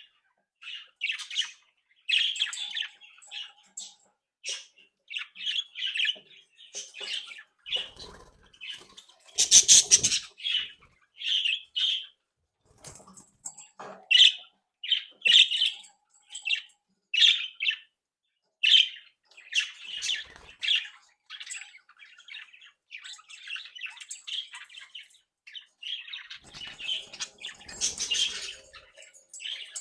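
A flock of budgerigars chirping and chattering, many short calls overlapping in a quick, irregular run, with a few louder, harsher bursts.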